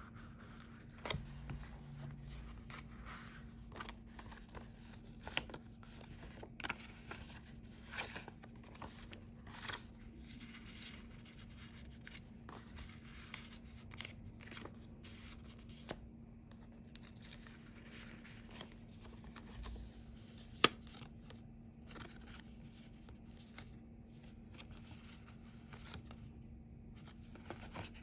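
Paper rustling and sliding as pages of a handmade junk journal are turned and paper ephemera (cards, labels, a seed packet) are pulled out of its pockets and handled, with scattered soft taps and one sharp click about two-thirds of the way through. A faint steady hum sits underneath.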